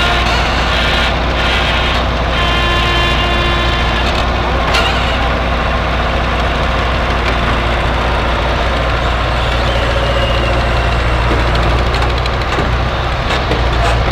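A large engine running steadily with a deep, even hum. A higher whine rises over it for a couple of seconds a few seconds in, and a sharp click follows shortly after.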